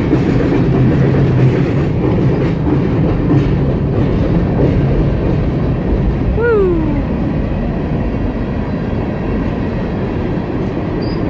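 BNSF mixed freight train's boxcars and tank cars rolling past close by: a steady noise of steel wheels on the rails. There is one brief falling squeal about halfway through.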